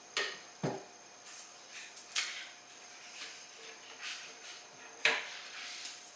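Hands handling an upturned pine wooden box while pressing felt furniture pads onto its corners: a few short, light knocks and scrapes on the wood, with one duller thump about half a second in.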